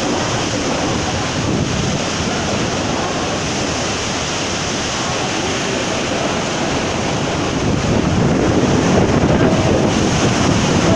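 Loud, steady rush of cyclone-force wind and surf, with wind buffeting the microphone; it gets louder about eight seconds in.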